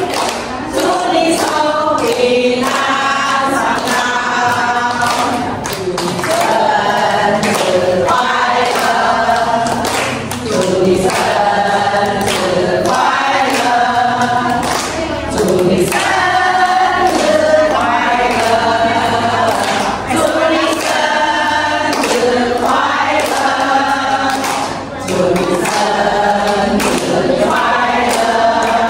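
A group of women singing a birthday song together, clapping along in time.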